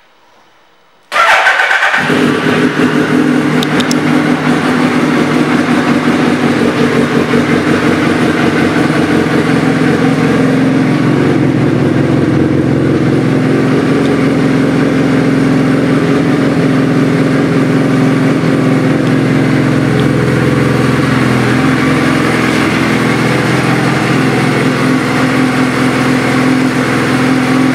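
2008 Suzuki B-King's 1340 cc inline-four with a Two Brothers Racing exhaust, starting about a second in and catching at once, then idling steadily.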